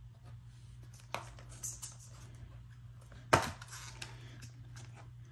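Plastic multi-disc DVD case being handled and opened: a few light clicks and scrapes, then one sharp plastic snap a little over three seconds in as the case opens, followed by softer clicks.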